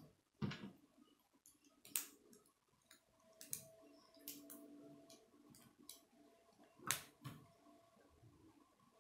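Hard plastic K'nex rods and connectors clicking as they are snapped together by hand: a string of sharp, irregular clicks, the loudest about two seconds and seven seconds in.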